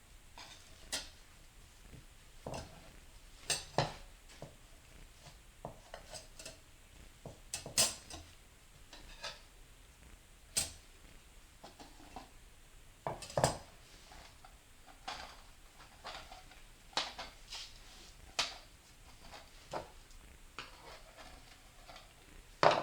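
Metal automatic-transmission parts, clutch-pack plates and drum pieces, clinking and clattering as they are handled and set down: irregular sharp clinks every second or two, the loudest near the end.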